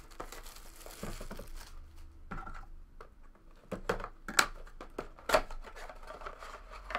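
Crinkling plastic wrap and cardboard trading-card boxes being handled and opened, with a few sharp taps and knocks as the boxes meet the table.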